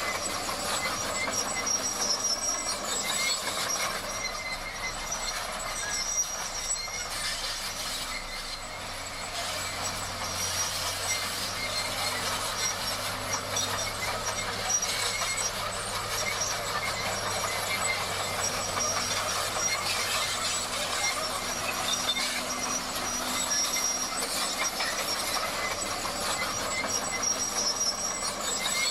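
Crawler bulldozer working: engine running under a steady metallic clatter and squeal from its steel tracks.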